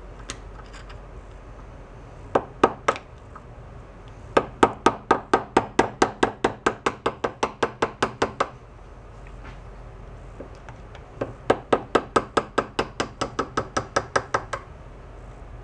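Small hammer tapping a steel punch against the key of an engine shaft clamped in a bench vise, to drive the key out. It gives a few single taps, then two quick runs of sharp metallic taps at about five a second, the second run starting about eleven seconds in.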